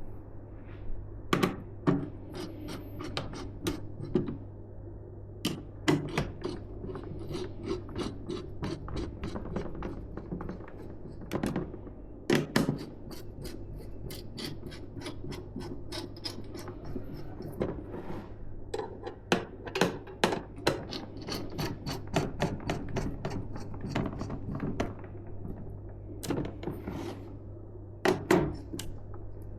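Hands working PC hardware up close: a long run of sharp clicks and taps with rubbing and scraping between them, over a steady low hum.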